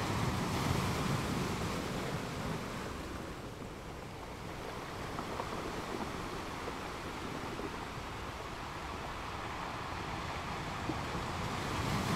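Ambience recording of waves crashing on a rocky beach: a continuous rush of surf that swells, eases off for a while, then builds again near the end.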